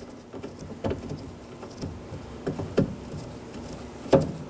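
A few light clicks and knocks of a 10 mm bolt and door-handle hardware being handled against a car door as the bolt is threaded in by hand, the loudest knock near the end.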